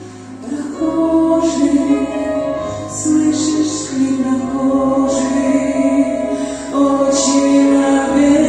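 A choir of mixed voices singing a slow Russian-language Christian hymn, several voices holding sustained notes together and moving from note to note about once a second.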